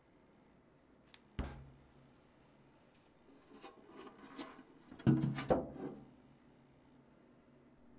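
A single knock on a wooden board about a second and a half in, as a rounded ball of bagel dough is set down. Then handling noise and a louder plastic clatter about five seconds in, as a clear plastic container is set down over the dough balls on the board.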